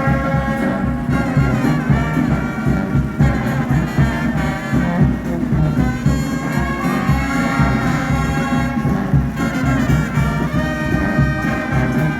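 Street brass band playing live, trumpets and trombones over a steady drum beat.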